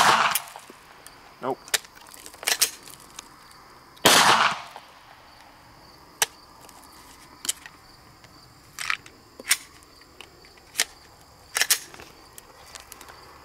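Glock 17 9mm pistol fired twice, once at the start and again about four seconds in, each shot ringing out briefly. In between and afterwards come a string of short metallic clicks and clacks as the sand-fouled gun is handled and worked, struggling to go back into battery. Crickets chirp steadily in the background.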